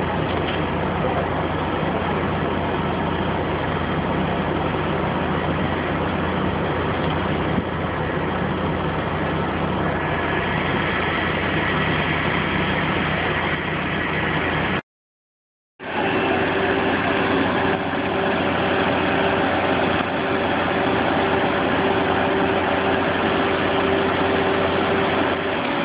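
A crane's engine running steadily under load as it holds a rooftop air-conditioning unit on slings. The sound drops out for about a second halfway through, and then carries on with a steady hum over it.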